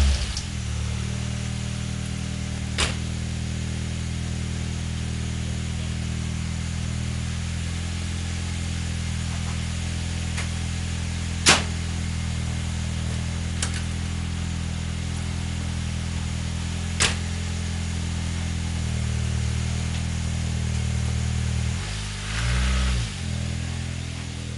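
Turbocharged Nissan Micra engine running steadily at idle, heard at the exhaust tailpipe, with a few sharp clicks through it. The owner says failed oil rings on cylinders 1 and 4 have flooded them with oil and fouled the plugs. Near the end the engine note swells briefly and bends in pitch.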